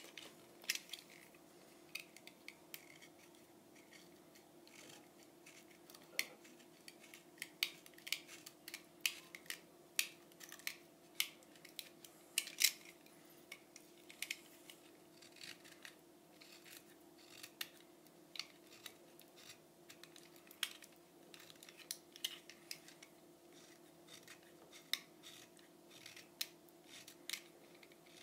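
Irregular sharp clicks and snips of a thin wooden stick being cut and shaved down by hand around a notch, thinning it into a model aeroplane's propeller shaft.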